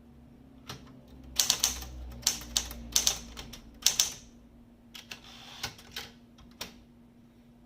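SCM Sterling 12 manual portable typewriter being typed on: sharp key strikes in irregular bursts, the loudest run from about a second and a half to four seconds in, then a few scattered, quieter strikes toward the end.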